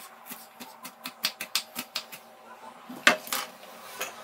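Kitchen knife dicing onion on a wooden cutting board: a quick run of taps for about two seconds. One louder knock follows about three seconds in.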